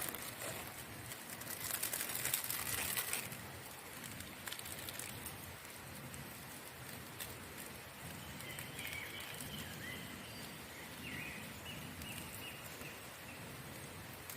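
Steady hiss of outdoor forest ambience, with a louder burst of dense crackling clicks and rustle about one to three seconds in, and a few faint high calls in the second half.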